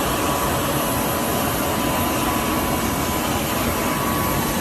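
Jet aircraft running on the ground, heard as a steady roar with several high, steady whining tones on top.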